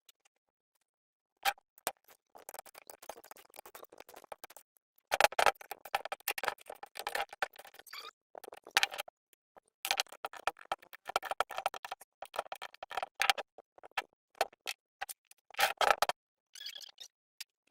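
Irregular clicks, scrapes and short metallic clinks of tools and parts being handled, some of them ringing briefly, in a stop-start clatter.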